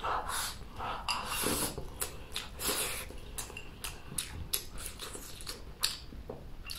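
Eating sounds: chewing a mouthful of chopped chili and rice, with chopsticks clicking against a stoneware bowl and several loud sniffs and breaths between bites.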